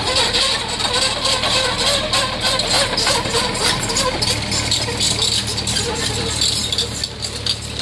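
Mini excavator's diesel engine running steadily with a wavering whine, over a scatter of clanks and gravel scraping as the machine's bucket works the stones.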